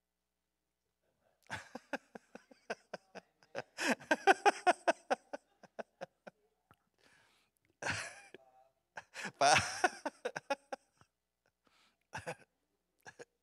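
Indistinct voices and short vocal sounds from people in the room, in several brief bursts, with scattered clicks between them.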